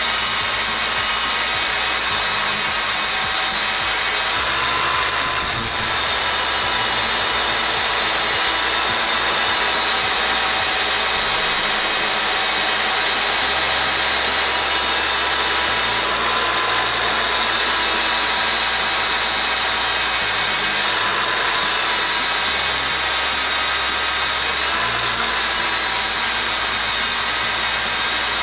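Angle grinder with a flap disc grinding the thread off a steel M8 bolt: a continuous, steady motor whine over grinding noise.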